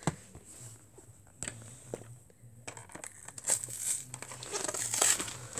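Plastic blister and cardboard backing of a Beyblade Burst toy package crinkling and crackling as hands work it open. First scattered clicks, then denser crinkling from about halfway in.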